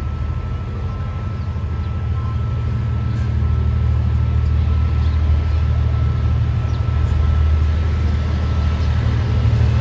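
Diesel locomotive approaching under power, its engine making a deep, steady rumble that grows louder as it nears. A faint steady high tone runs above the rumble.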